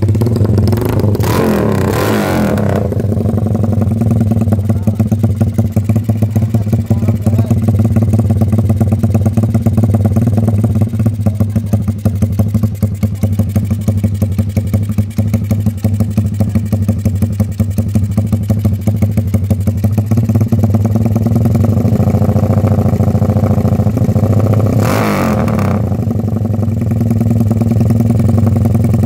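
Honda Megapro's air-cooled single-cylinder engine idling through a RICK aftermarket racing exhaust, with a quick blip of the throttle near the start and another near the end.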